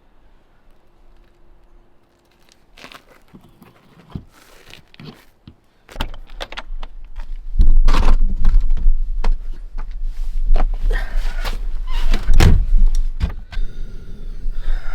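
Clicks, knocks and clunks of someone handling things and moving about, starting faint and growing loud about six seconds in, with a heavy low rumble over the microphone from then on.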